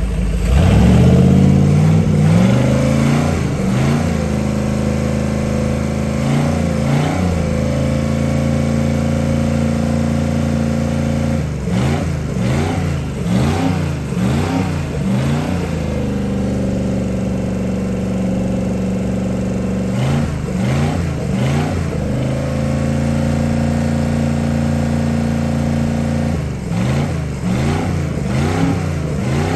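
Freshly overhauled 454 (7.4L) big-block V8 marine engine running on a test stand. It idles steadily and is blipped at the throttle several times, with a quick run of about five revs in the middle.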